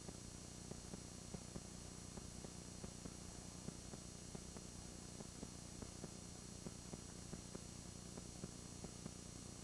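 Faint steady hum and hiss, with light irregular clicks a few times a second.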